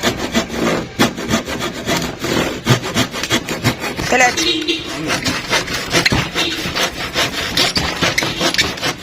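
Hand saw cutting through a wooden board in steady, repeated back-and-forth strokes.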